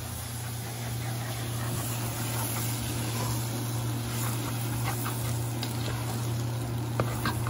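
Chopped vegetables and bacon sizzling in an aluminium pot while being stirred with a wooden spoon, over a steady low hum. A few sharp clicks of the spoon against the pot come in the second half.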